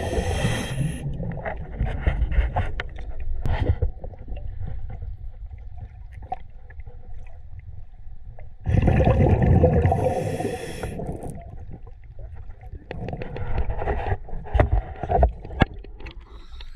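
Scuba diver breathing through a regulator underwater: two loud breaths, each a rush of bubbles and hiss, about ten seconds apart, with low bubbling and small knocks between them.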